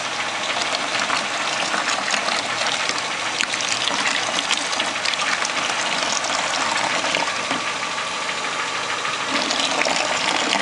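Cooling-system flush water gushing out of a drain hose into a bucket, splashing steadily during the rinse stage of a radiator flush, with the Renault Clio's 1.0 D7D engine idling underneath.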